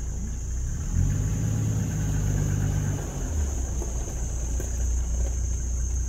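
Vehicle engine idling with a steady low rumble. It grows a little louder and deeper for about two seconds shortly after the start, then settles back.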